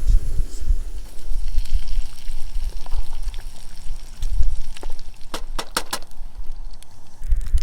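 Gusty wind buffeting the microphone, rising and falling in low rumbles, with a quick run of four or five sharp clicks a little over five seconds in.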